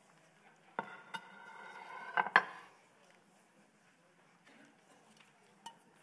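Dishes clattering on a kitchen counter as they are handled, with a brief ringing scrape that ends in two sharp knocks about two seconds in, as something is set down.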